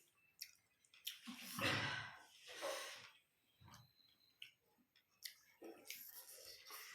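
Close-miked eating sounds: scattered small mouth and utensil clicks, and two long airy breaths one after the other, about one and a half to three seconds in.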